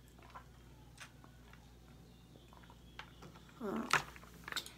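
Mostly quiet room tone with a few faint clicks of handling. A short murmur of a person's voice comes a little before the end.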